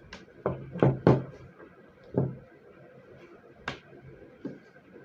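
Knocks and clatters of parts and tools being handled and set down on a work surface, a cluster of loud ones about a second in and a few lighter ones after.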